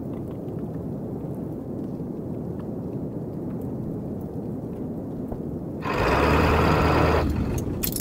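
Steady low rumble of wind in a snowstorm. About six seconds in there is a louder burst of about a second and a half with a low hum under it, then a few sharp clicks near the end.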